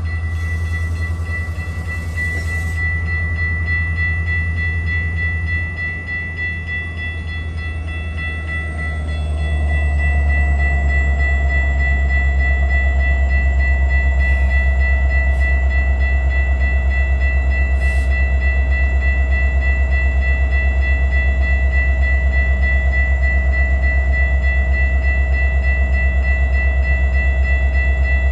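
Metra diesel-hauled commuter train at the platform, its locomotive engine giving a loud low steady drone with thin high whines over it. About ten seconds in, the engine note steps up louder and holds there.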